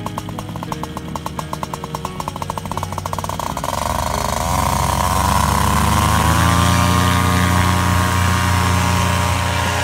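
Paramotor engine ticking over in quick, even pulses, then opened up about three and a half seconds in: the pitch climbs and it runs steady at high power for the takeoff run and climb-out.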